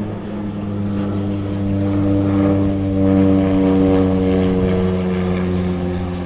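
A low-flying propeller aircraft passes overhead. Its engine drone swells to a peak about halfway through, then its pitch falls slightly as it moves away.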